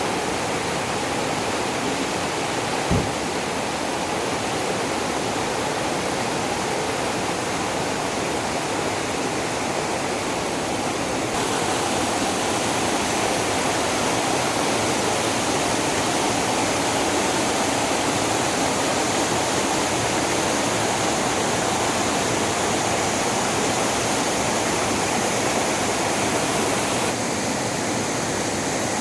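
Stream of water rushing steadily over a small waterfall, with one brief knock about three seconds in. The rush grows a little louder and brighter about eleven seconds in, then softens again near the end.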